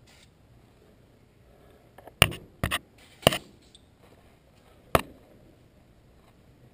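Sharp metallic clanks and clinks from handling rear brake caliper parts and tools: four quick knocks in about a second, starting about two seconds in, and one more about five seconds in.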